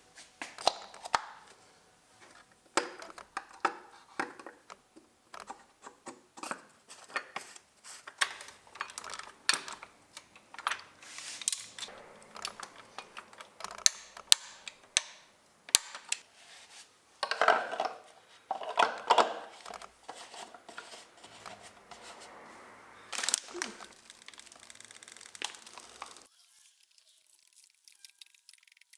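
Irregular clicks, clinks and scrapes of metal tools and parts being handled during hand work on a car's oil filter housing, with a couple of denser rustling bursts; the sound cuts off abruptly near the end.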